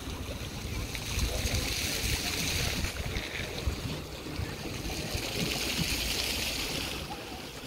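Wind rumbling on the microphone over a steady wash of small waves lapping against a lake's concrete embankment.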